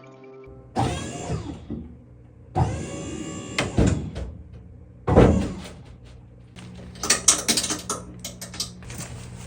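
Three sudden squeals or scrapes, each sliding down in pitch, followed near the end by a quick run of clicks and knocks, the sound of heavy equipment being shifted.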